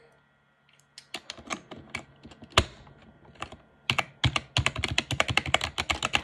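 Keys of a mini mechanical keyboard with spring switches being pressed. First come a few scattered clacks, one much louder than the rest. From about four seconds in it turns to fast, continuous typing.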